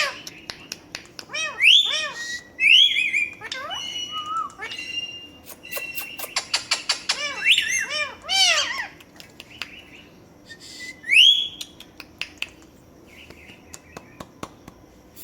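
Pet parrot calling: a string of arching whistles and squawks, broken by sharp clicks, going quieter in the last few seconds.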